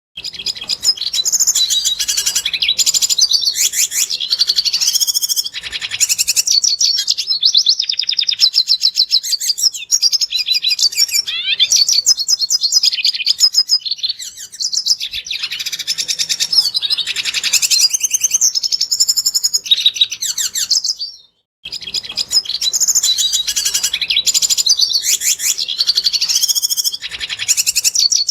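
Red siskin singing a long, fast, high-pitched twittering song of trills and chirps, with one short break late on.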